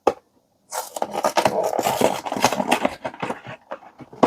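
Trading-card box packaging being torn and opened by hand: a short tap, then about two and a half seconds of dense scraping and crinkling, trailing off into scattered small rustles and taps.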